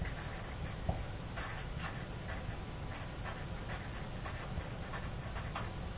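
Marker pen writing a word in short, scratchy strokes.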